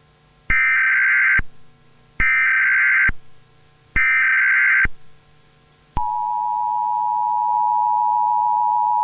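Emergency Alert System tones. First come three short bursts of SAME header data tones, each just under a second long, with a second or so of quiet between them. About six seconds in, the steady two-tone EAS attention signal starts and holds.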